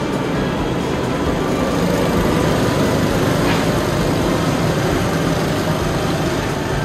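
Engines of several rental go-karts running as the karts lap the track, a steady mixed engine drone that gets a little louder in the middle as karts pass.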